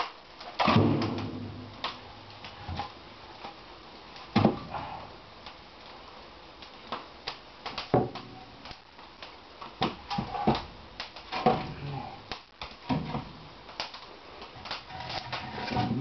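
Split firewood logs being handled and stacked into a cast-iron stove's firebox: irregular wooden knocks, clunks and scrapes as logs are picked up and set against each other and the metal.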